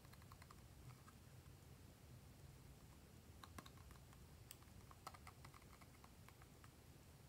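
Near silence with faint, scattered clicks and crackles of a soft plastic bottle being squeezed as thick pink slime ingredient is poured from it. The clicks come in small clusters, most at the start and around the middle.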